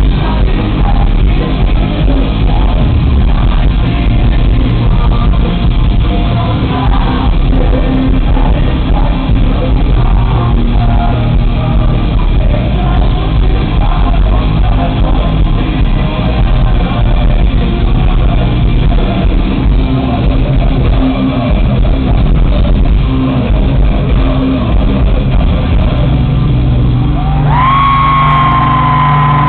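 A post-hardcore band playing live from the crowd's position: electric guitars, bass and drums with a singer shouting and singing. Near the end a single high note slides up and is held.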